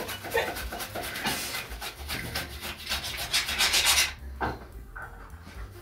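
Raw potatoes being sliced paper-thin: a quick, even run of rasping slicing strokes, about four or five a second, that stops about four seconds in.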